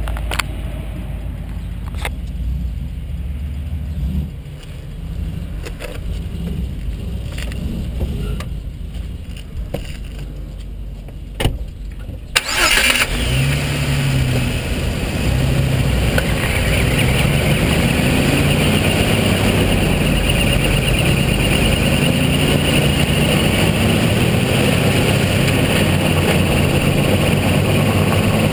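2005 Jeep Wrangler Unlimited Rubicon coasting with its engine off: a low rumble of tyres and drivetrain with short sharp chirps every second or two, the drivetrain chirp the owner is trying to find. About twelve seconds in, the 4.0-litre straight-six is restarted and the Jeep accelerates with rising engine pitch, then drives on steadily.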